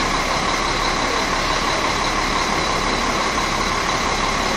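Diesel buses idling: a steady engine drone with a constant high whine over it.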